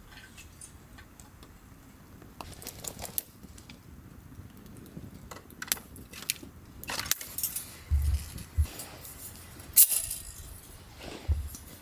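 Camping gear being handled: a string of light clicks and small metal clinks, with a few soft thumps about eight seconds in and a sharp click just before ten seconds.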